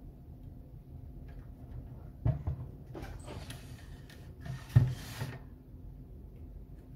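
Handling noise as the opened electronic load unit is moved about: a knock a little after two seconds in, then rustling and scraping, and a louder knock about two-thirds of the way through.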